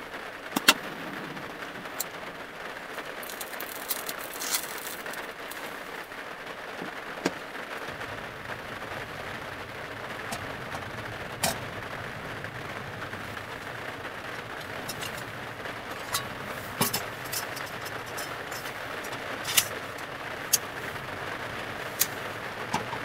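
Steady rain on the roof and body of a small van heard from inside, an even hiss throughout. A long utility lighter clicks sharply about half a second in, and scattered clicks and light knocks from handling metal stove parts follow.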